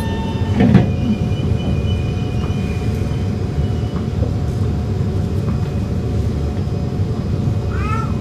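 Singapore MRT electric train heard from inside the carriage as it draws alongside a station platform: a steady low running rumble with faint steady motor whine. A single clunk comes about a second in, and a couple of short high chirps come near the end.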